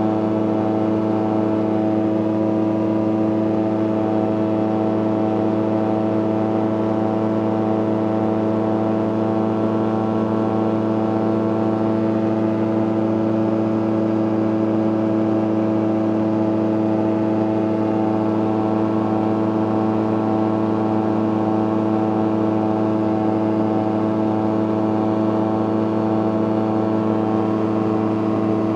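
CGS Hawk ultralight aircraft's engine and propeller running steadily in level cruise flight, heard from inside the cockpit. The pitch and loudness stay constant throughout.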